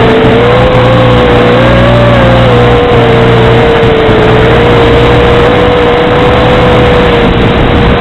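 Onboard audio of a radio-controlled FPV aircraft's electric motor, heard as a whine that wavers up and down with throttle over a heavy steady hiss.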